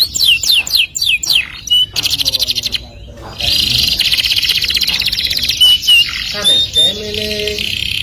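Domestic canary singing: a run of quick falling notes, a short pause about three seconds in, then a long, very fast rolling trill.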